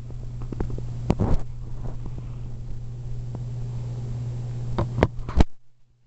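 Sleeping bloodhound puppy lightly snoring, a steady low rumble that drops away near the end. A few sharp knocks come about a second in and again near the end.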